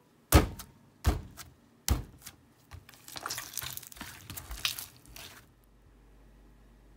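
Hand slapping a blob of blue glitter slime three times, sharp wet smacks about a second apart, then squishing and squelching it for a few seconds before the sound stops.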